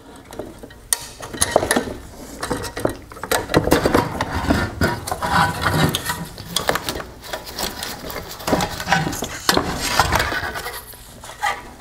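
Hard plastic parts of a Range Rover Sport LED headlight being handled: irregular clicks, knocks and rattles as wire connector clips are released and the plastic LED unit is worked loose from the housing.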